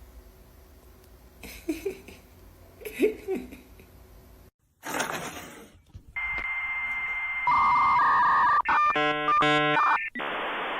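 Electronic tones over steady hiss: a held tone, then a louder lower tone, then a quick run of beeps.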